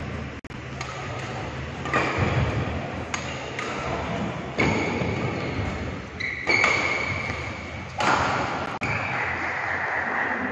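A badminton rally: sharp cracks of rackets striking the shuttlecock about every one to two seconds, with high squeaks of the players' shoes on the court.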